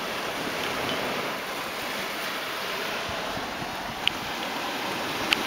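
Steady wash of sea waves on the shore, with two short sharp clicks in the last second and a half.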